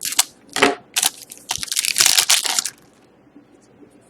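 Foil wrapper of a hockey trading card pack being torn open and crinkled: two short rips, then a longer stretch of tearing and crinkling from about a second in that stops abruptly before the end.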